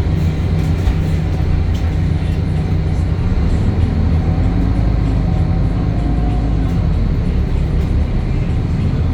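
Euro 5 DAF diesel engine and driveline of a Temsa Avenue LF 12 city bus running steadily under way, a deep continuous drone with a faint shifting whine in the middle.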